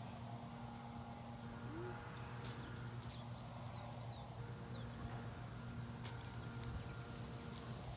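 Faint outdoor ambience: a steady low hum, with a few faint distant bird chirps about three seconds in and a few light clicks.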